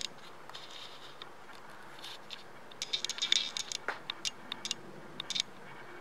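Stiff clear plastic blister packaging crackling and clicking as it is handled: a few faint ticks, then a dense run of quick crackles starting about three seconds in.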